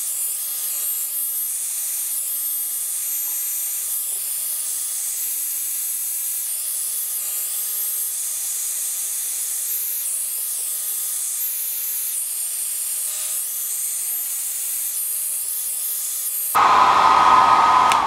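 1800 W ionic hair dryer with a diffuser attached, running steadily: a thin airy hiss with a faint steady whine. About a second and a half before the end it jumps to a louder, fuller blowing with a stronger whine.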